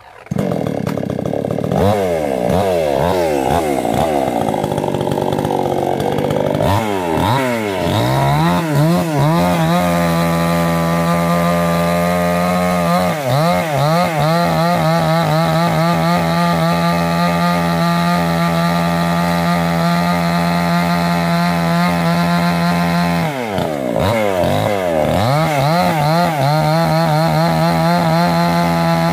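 Petrol chainsaw cutting into the base of a large rain tree trunk. It comes in loud just after the start, revs up and down for several seconds, then runs steadily at high revs through the cut, sagging and recovering briefly about halfway and again near the end.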